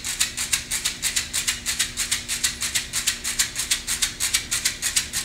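A hand rattle shaken in a steady, even rhythm of about five shakes a second.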